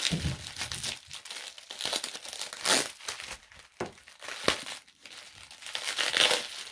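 Plastic bubble wrap crinkling and tearing in irregular bursts as a crystal is unwrapped by hand, with a few louder crackles.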